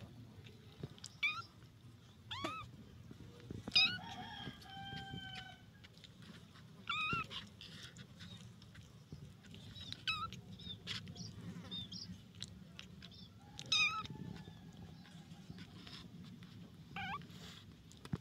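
Very young kittens mewing: short, high-pitched mews, several falling in pitch, coming every couple of seconds.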